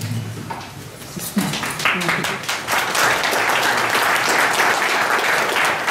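Audience applauding, building up about two seconds in and continuing as a steady clatter of many hands clapping.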